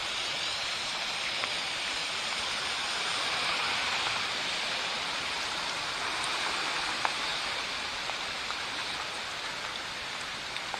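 Steady hiss of rain and running floodwater, with one faint click about two-thirds of the way through.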